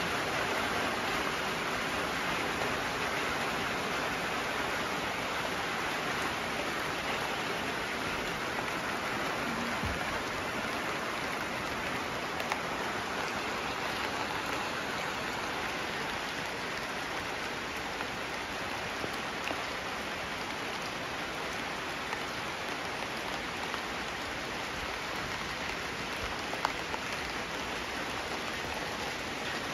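Steady rain falling, with a few faint clicks of single drops.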